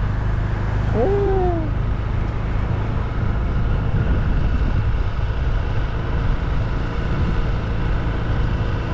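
Steady low rumble of a vehicle travelling along a road. About a second in, a short pitched call sweeps up and then slowly falls.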